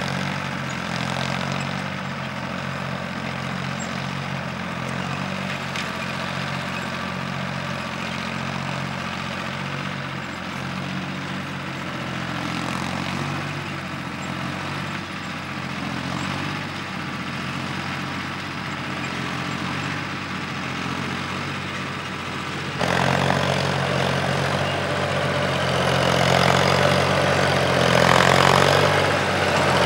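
Ford 4600 tractor engine running steadily while pulling a plough through the soil. About three quarters of the way through it suddenly gets louder, and it keeps building toward the end.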